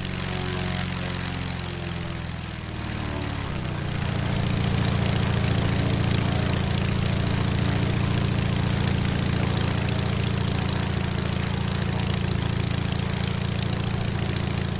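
Half-VW two-cylinder air-cooled airplane engine (1037cc cut case) running on a test stand and turning a 54x20 Tennessee propeller. Its note dips a little about two to three seconds in, then it runs louder and steady from about four seconds on.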